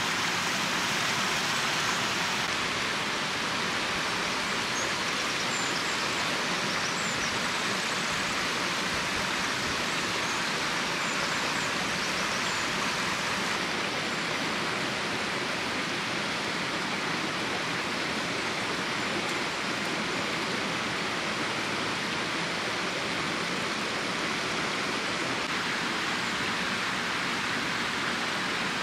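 Stream water rushing steadily, an even, unbroken noise.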